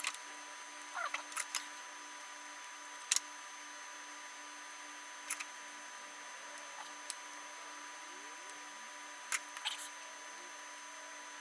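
Light, scattered clicks and taps of a circuit board and small hand tools being handled on a workbench, the sharpest about three seconds in and again about nine seconds in, over a faint steady electrical hum with a thin high whine.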